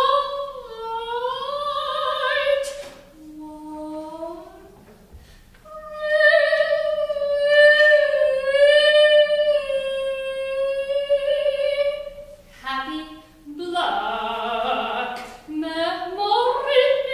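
A solo soprano sings unaccompanied in a contemporary micro-opera. She glides down into a held note, sings a quieter low phrase, then holds a long note with vibrato for about six seconds. Near the end the line breaks into short, rapid fragments and rising phrases.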